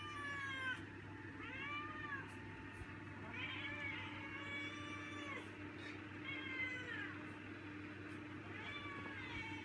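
Domestic cat meowing over and over for food: about six drawn-out meows, each rising then falling in pitch, a second or two apart.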